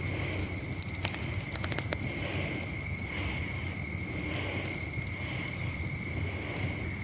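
Night-time outdoor ambience: a steady high insect trill, with scattered crackles from a bonfire and a low rumble underneath.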